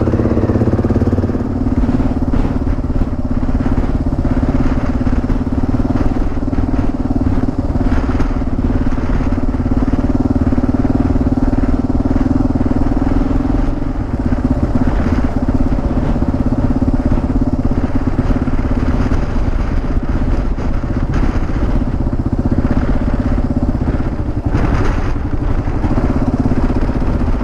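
Adventure motorcycle engine running at a steady note while riding along a dirt road.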